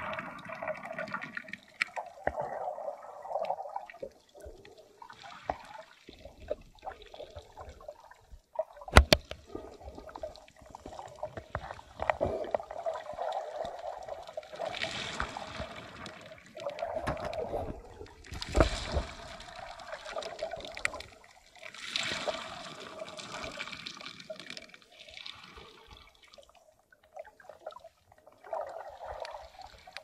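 Shallow seawater heard underwater through a camera's waterproof housing: muffled, irregular sloshing and gurgling that swells and fades. There are two sharp knocks, about nine seconds in and near nineteen seconds.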